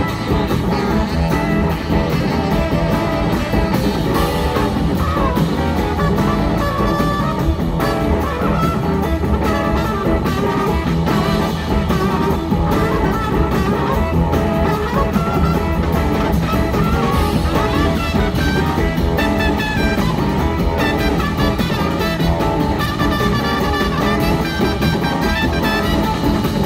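Live blues-rock band playing, with electric guitars to the fore over drums and a horn section.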